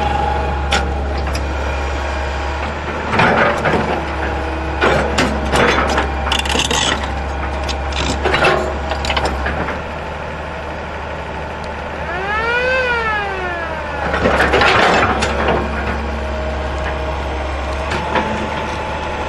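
Heavy construction machine's diesel engine running steadily, with a series of knocks and clattering impacts, then a whine that rises and falls once, followed by another burst of clatter.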